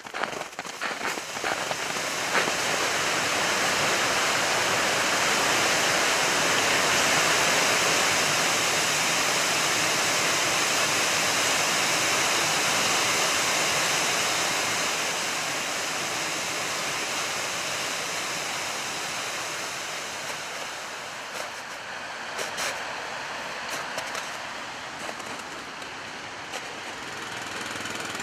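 Footsteps crunching in snow for the first couple of seconds, then the steady rush of a river, loudest in the middle and easing a little toward the end.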